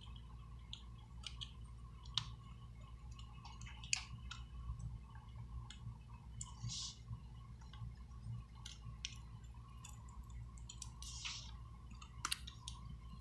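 Scattered small clicks and taps of tools and parts being handled while an iPhone 6 Plus is reassembled, with two brief scrapes about 7 and 11 seconds in, over a steady low hum.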